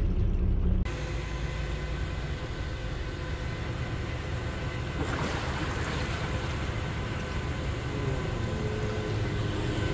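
A boat's engine running steadily under wind and water noise. The sound changes abruptly just under a second in, and the hiss grows louder about five seconds in.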